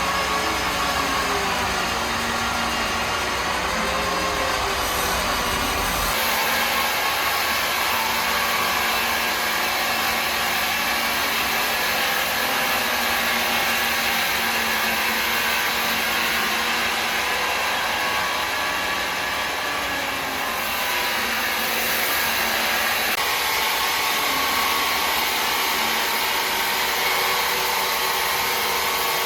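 Woodworking machinery in a wood workshop running steadily with a continuous whirring noise. A low rumble underneath drops away about six seconds in.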